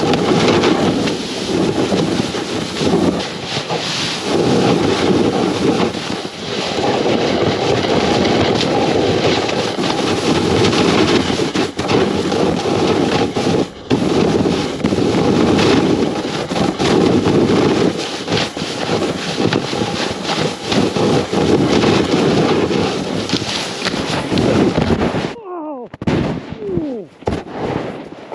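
Snowboard riding over snow, heard from a board-mounted camera: a loud, continuous scraping rasp of the base and edges with many small knocks and chatter, swelling and dipping with the turns. Near the end it cuts off suddenly as the board-mounted camera goes into the snow in a fall, leaving a few scattered scuffs.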